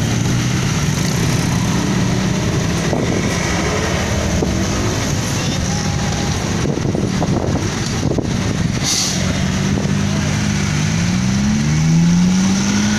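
Mixed road traffic of motorcycles, cars and trucks driving across a railway level crossing, engines running as they pull away over the rails. There is a short hiss about nine seconds in, and near the end a truck's engine revs up, rising in pitch.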